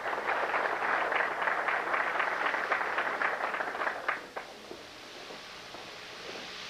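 Audience applauding for about four seconds, then dying away.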